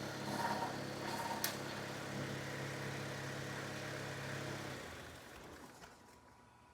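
Toyota Tacoma's 2.7-litre four-cylinder engine idling steadily, with a sharp click about a second and a half in, then running down and stalling about five to six seconds in. It dies once the new MAF sensor is plugged back in, a sign that the sensor is faulty.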